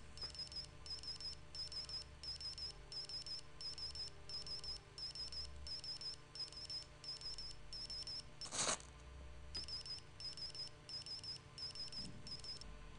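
Faint, high-pitched electronic beep repeating about three times a second, typical of a model-rocket launch controller's continuity beeper signalling a complete circuit through the hooked-up Copperhead igniter. A single sharp click breaks in about two-thirds through, and the beeping stops just before the end.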